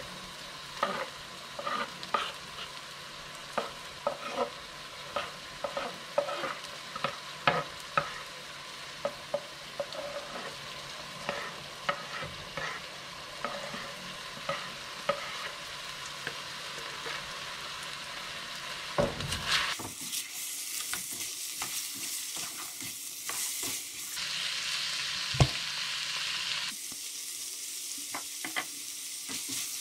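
Food frying in a pan, stirred with a utensil that knocks and scrapes against the pan. Over the last third the sizzle turns louder and more even, shifting abruptly a few times.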